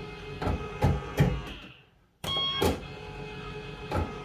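Reels of a 1982 Bellfruit Firecracker fruit machine spinning with a steady mechanical hum. Three reels clunk to a stop one after another, the machine falls quiet for a moment, then a new spin starts with a clunk and the reels spin again.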